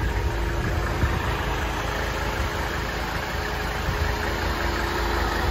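Mercedes-Benz 300SD's 3.0-litre turbodiesel inline-five idling steadily.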